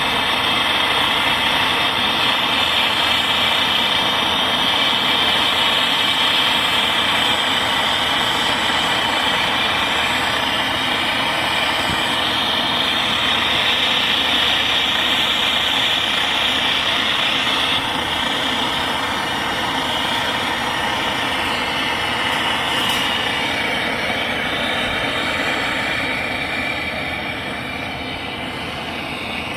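Brazing torch flame hissing steadily on copper pipe, easing off a little in the last few seconds.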